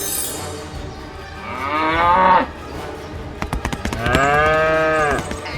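Cow mooing twice. The first call rises in pitch and breaks off sharply about two and a half seconds in. The second, longer call comes about four seconds in and rises and falls. A quick run of clicks comes just before the second call.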